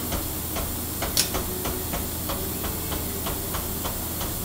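Vertical milling machine's table being lowered with the hand crank: a regular click about three times a second as the handle turns, the loudest about a second in, over a steady hum and hiss.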